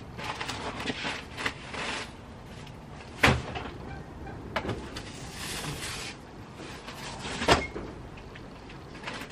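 Boxes, bags and household items being rummaged through and shifted: rustling and scraping, with two sharp knocks about four seconds apart.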